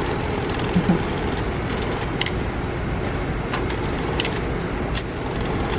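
Banknotes being handled at the bill slot of a subway ticket and card-reload machine: about four short sharp clicks over steady background noise. The machine is refusing a bill.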